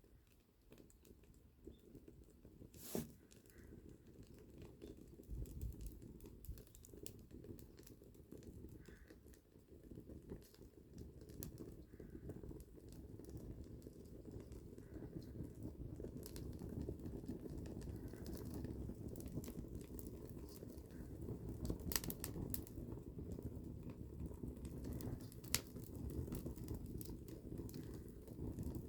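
Wood campfire crackling, with scattered sharp pops: one a few seconds in and two louder ones late on. A low rumble under the crackle grows gradually louder.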